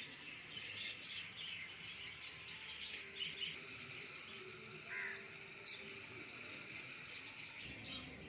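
Small birds chirping and twittering over a steady high hiss.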